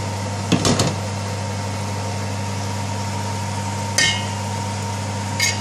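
Aluminium cooking pot knocking and clinking on the gas hob as it is handled: a short rattle of knocks about half a second in, a single ringing metallic clink about four seconds in, and a lighter clink near the end. A steady low hum runs underneath throughout.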